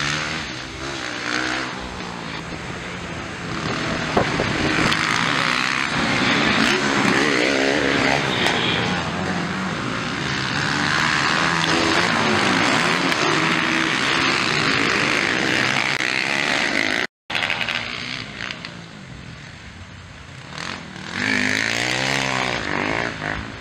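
Several motocross dirt bike engines revving hard and backing off as the bikes race over the track, their pitch rising and falling again and again. The sound cuts out completely for a moment near the middle.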